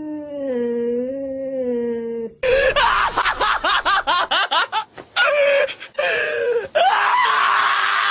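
A cat's long, low, wavering yowl during a standoff. After a sudden cut come rapid, choppy, laughter-like bursts of voice. From about seven seconds in, a loud sustained scream follows.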